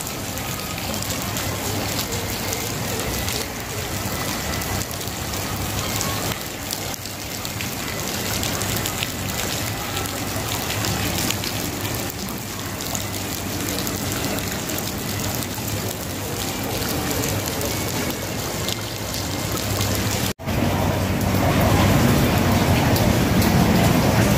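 Steady rain falling on shallow floodwater: an even hiss of drops with no pitch. A brief dropout about twenty seconds in, after which the sound is louder and deeper.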